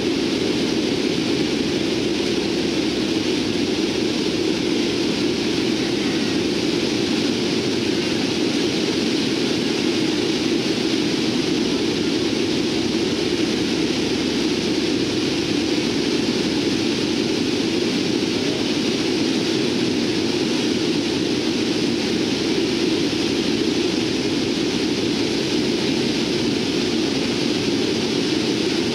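Steady, loud drone of a Lockheed C-130T Hercules' four Allison T56 turboprop engines and propellers, heard inside the cargo hold. It has a strong low hum and a hissing upper layer.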